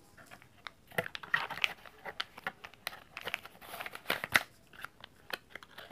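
Plastic wrapping and cardboard product boxes being handled: irregular crinkling and rustling with scattered sharp clicks and taps, busiest in the middle.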